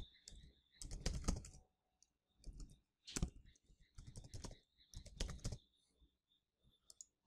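Computer keyboard typing, faint: short runs of keystrokes with pauses between them as a name and username are entered.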